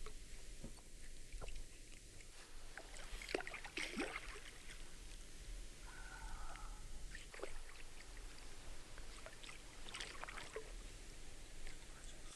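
A hooked carp splashing at the surface close to the bank as it is played and drawn toward the landing net, in several separate splashes and sloshes, the strongest a few seconds in and again near ten seconds.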